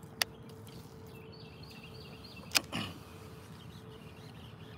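Two sharp clicks about two and a half seconds apart, the second followed by a brief lower thump, over a faint steady hum.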